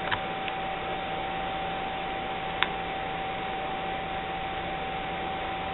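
Steady hiss with a constant high tone, with two small sharp clicks about two and a half seconds apart from handling the netbook's screen parts.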